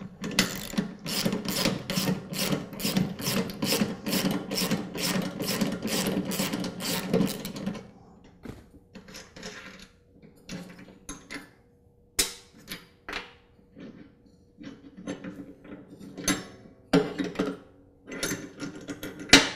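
Ratcheting socket wrench clicking in a steady rhythm of about three strokes a second for some seven seconds, backing the nut off the deck idler pulley's bolt. After that come scattered light metal clicks and taps as the loosened nut and the pulley are lifted off.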